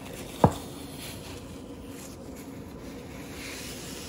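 A single sharp knock about half a second in, over a low steady hum.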